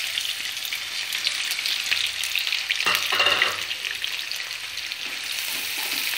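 Freshly added sliced onions sizzling and crackling in hot mustard oil in a nonstick kadai, the first stage of deep-frying them into crisp brown fried onions (beresta). A spatula stirs them through the oil, with some scraping about three seconds in.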